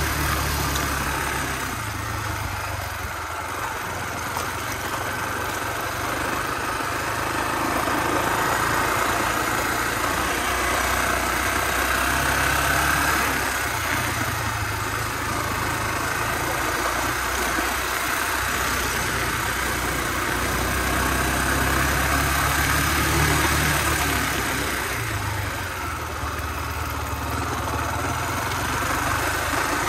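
Honda XR250R's single-cylinder four-stroke engine running as the bike is ridden along a dirt trail. The engine note swells and eases off several times as the throttle is worked.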